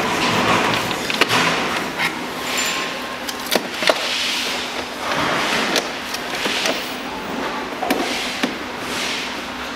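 Hard plastic knocks and scraping as the ride-on toy's plastic motor gearbox housings are handled and pushed into place on the plastic body, with a handful of sharp clicks scattered through.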